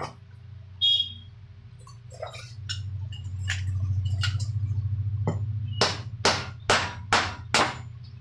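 Worn shaft of a table fan motor being knocked out with blows: a few scattered taps, one ringing briefly about a second in, then five hard strikes in quick succession near the end.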